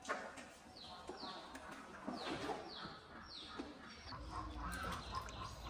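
Birds chirping, a run of short, high, falling chirps, over water splashing and sloshing in a small pool as a monkey swims in it. A steady low hum comes in near the end.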